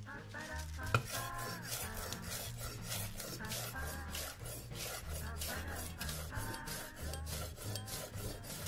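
Rhythmic rasping strokes of food preparation, several a second, over background music with a steady bass line.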